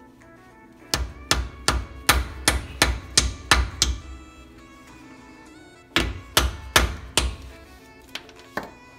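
Background music with a melody, and a run of sharp, evenly spaced knocks, about three a second, that stop about halfway through and come back for four more hits.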